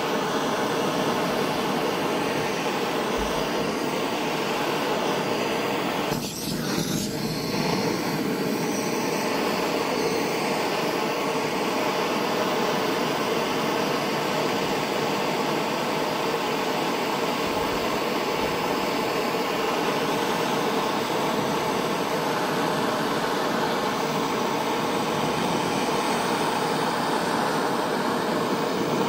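Handheld propane torch burning steadily, a continuous hiss from its gas flame, with a brief dip about six seconds in.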